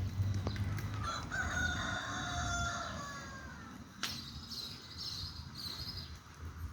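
Rooster crowing: one long crow of about two seconds, starting about a second in, then fainter high bird calls and a single sharp click.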